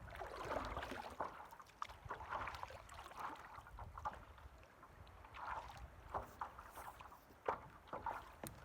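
Paddle or oar strokes splashing water every second or two as a small boat is worked along, with scattered light knocks and a low rumble of wind.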